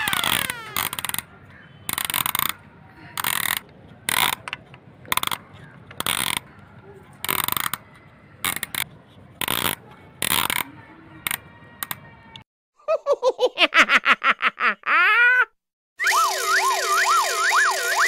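Irregular short scraping noises as a plastic toy crawler crane is moved in sand, then a rapid run of electronic pulses, and, near the end, an electronic siren warbling about three times a second over a steady tone.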